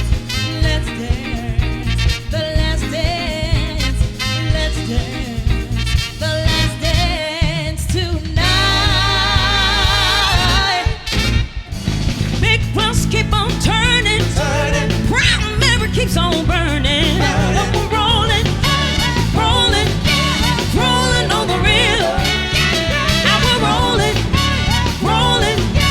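Live soul band playing an up-tempo number with a steady beat and some singing; the music drops out briefly about eleven seconds in, then the full band comes back in.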